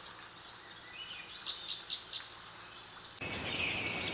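Birds chirping over a faint outdoor hiss. About three seconds in, the sound changes abruptly to a louder background with denser, rapid chirping.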